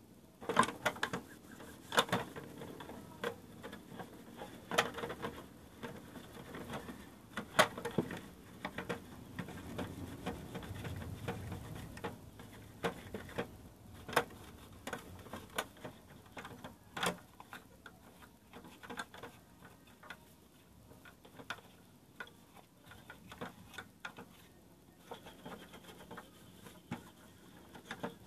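Irregular clicks and knocks of hard plastic sewing machine housing parts and tools being handled and fitted together, with a few sharper knocks in the first half.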